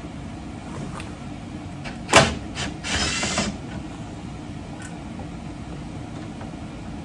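Ridgid subcompact cordless impact driver with a 10 mm socket running in short bursts to back out a tail-light bolt. There is one sharp loud hit about two seconds in, then about half a second of running around three seconds in, over a steady low hum.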